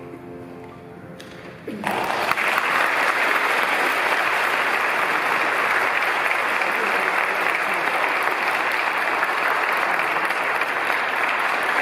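The last held chord of a choir's song fading away, then audience applause breaking out a little under two seconds in and continuing at a steady level.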